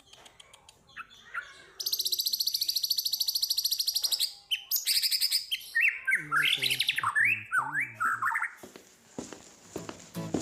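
Songbird singing: a fast, high, rapid trill of about two seconds, a shorter trill, then a run of quick rising notes.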